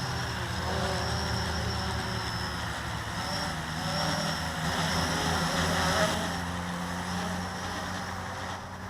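Blade 350 QX quadcopter's electric motors and propellers buzzing in flight, the pitch wavering up and down as the motors change speed.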